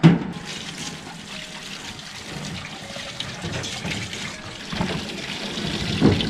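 Tap water running from a hose into a stainless steel sink while green onions are rinsed by hand under it. There is a sharp knock right at the start and a couple of dull thumps near the end.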